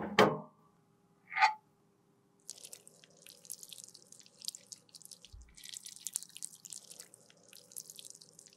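A plastic makeup palette and lid clatter on a metal wire rack as they are lifted out, with a single knock just after. Then thick liquid concealer is poured from a small glass beaker into the palette's wells: a wet, crackly trickle with short pauses.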